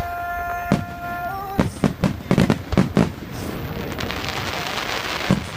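Aerial fireworks going off: a single bang just under a second in, a quick run of bangs around two to three seconds, then a dense crackling that lasts a couple of seconds. A held note of music sounds over the first second.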